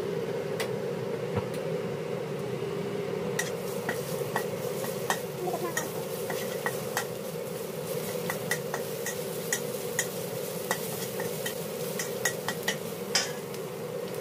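Metal spatula stirring and scraping chopped aromatics around a wok of sizzling oil, over a steady hiss. Frequent sharp clicks of the spatula against the pan come from about three seconds in.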